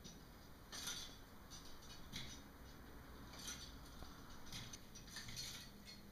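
Faint, short metallic clinks and rustles from a chest expander's handle and cables, about one every second, as it is pulled through biceps curls.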